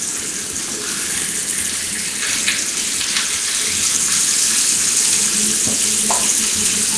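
Hot dogs frying in a pan: a steady sizzling hiss with a few faint pops.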